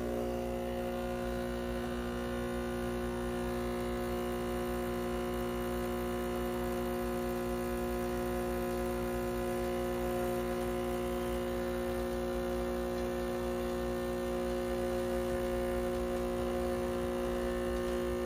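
Breville Barista Express's vibratory pump humming steadily as it pushes water through the coffee puck during an espresso extraction.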